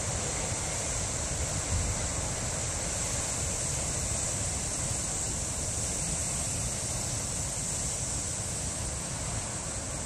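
Heavy ocean surf breaking over rocks below a sea cliff: a steady, unbroken wash of noise, with wind gusting on the microphone as a low rumble.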